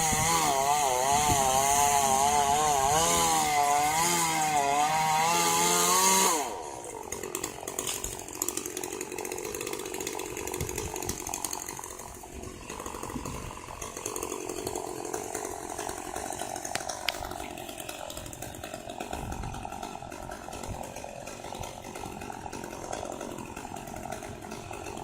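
Two-stroke chainsaw at high revs, its pitch wavering as it cuts through eucalyptus wood. About six seconds in the throttle is released and the engine drops to a quieter, lower running sound.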